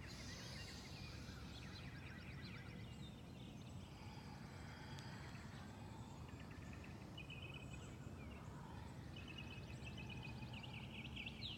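Outdoor ambience: a steady low background rumble with birds chirping and giving short quick trills now and then.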